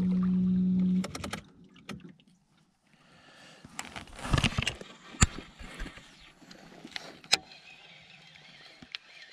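A voice holds one steady low note for about a second. Then come small knocks and clicks of fishing gear on a kayak, with a short splash-like rush about four seconds in and a few sharp clicks later on.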